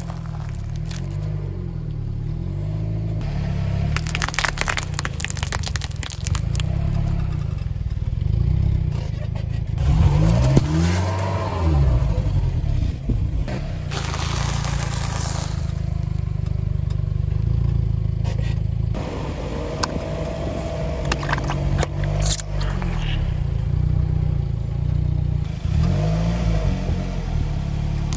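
Car engine running with a low rumble, rising and falling in pitch a few times as the car creeps forward. Its tyre rolls over and crushes a row of snacks in turn (a Nutella & Go cup, chocolate wafer biscuits, wrapped lollipops), giving several sudden crackling crunches with scraping on the asphalt.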